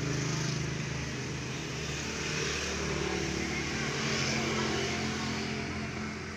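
A motor-driven machine running steadily, a low even hum with a hiss over it.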